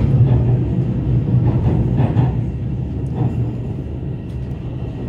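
Shenzhen Metro Line 1 train running, heard from inside the carriage: a steady low rumble of wheels on the rails with a few faint knocks, growing slightly quieter toward the end.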